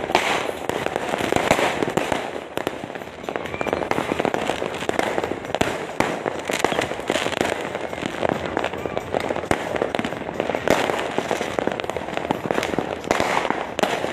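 Fireworks and firecrackers going off without let-up: a dense, continuous stream of sharp cracks and bangs.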